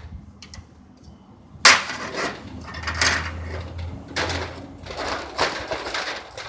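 A sharp knock about a second and a half in, followed by irregular scraping and rattling of parts being handled.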